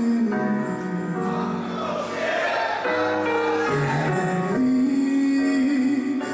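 Male singer singing a slow Korean ballad live over instrumental accompaniment, holding long notes.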